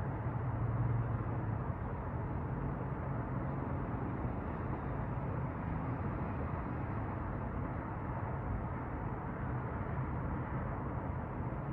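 Steady city street traffic heard from high above the street, a continuous wash of noise with a low rumble that swells briefly about a second in.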